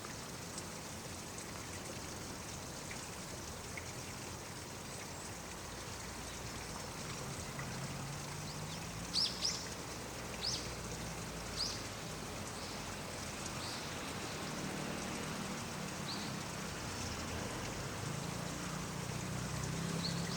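Short, high bird calls, four close together about halfway through and a couple more later, over a steady rushing background; a low hum comes up in the second half.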